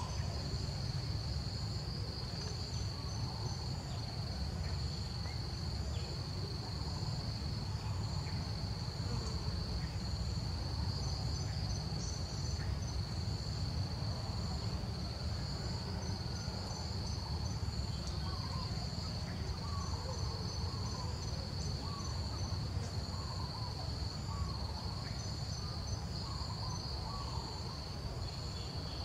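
Insects trilling in a steady high-pitched drone, with short runs of faster pulsing higher up, over a low rumble. Faint short chirps come and go, more of them in the second half.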